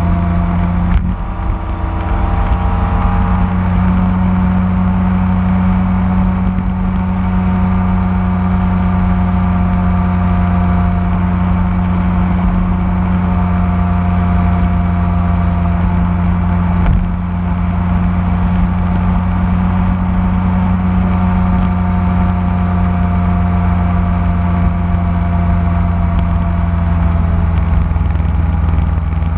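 BMW K1600 motorcycle's inline-six engine running at a steady cruise, heard from a camera mounted on the bike. It gives a steady low drone whose pitch barely changes.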